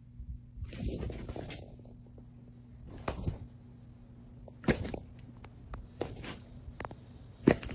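Scattered knocks, shuffles and rustling from movement, like footsteps or paws on a floor, over a faint steady hum.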